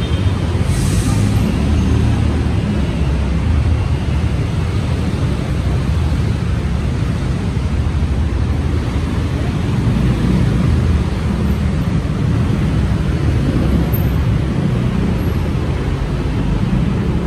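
Steady low rumble of city street traffic, with a brief high hiss about a second in.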